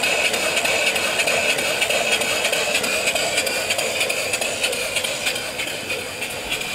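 Single-cylinder mill steam engine (3-inch bore, 4-inch stroke) running steadily on steam, its quick, even exhaust beat mixed with a constant hiss of escaping steam.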